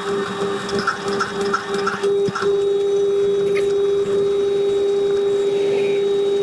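Metal shaper running steadily just after start-up, its electric motor giving a constant whine, with a few light ticks about three a second in the first couple of seconds.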